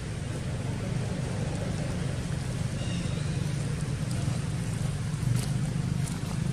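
Steady low rumble of background noise, with a few faint crackles near the end.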